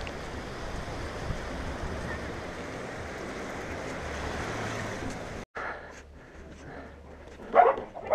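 Choppy Lake Titicaca waves washing onto a sandy shore, with wind buffeting the microphone. About five seconds in it cuts off abruptly to a quieter outdoor background, broken near the end by a short loud sound.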